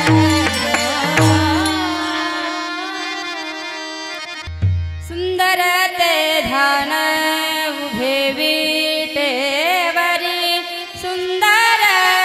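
Marathi kirtan music: a woman's voice sings a wavering devotional melody over a harmonium and tambura drone, with pakhawaj drum strokes and hand cymbals (taal) keeping time. Held notes fade for the first few seconds, a deep pakhawaj stroke lands about four and a half seconds in, and the singing then picks up, with the ensemble growing louder near the end.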